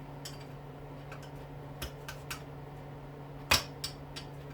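Metal clicks and light ticks as a tool works at a small retaining clip on a dishwasher motor, with one louder click about three and a half seconds in. A steady low hum runs underneath.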